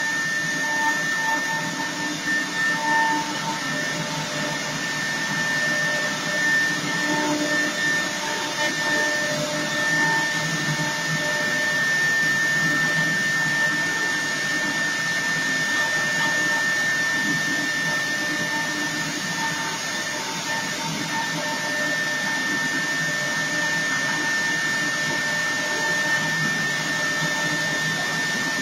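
4-axis CNC router carving a wooden cylinder on its rotary axis: the high-speed spindle gives a steady high-pitched whine over a rough, continuous cutting noise that swells and eases a little as the bit works along the wood.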